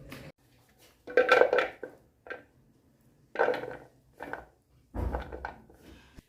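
Kitchen utensils and dishes clinking and clattering in about six separate short bursts.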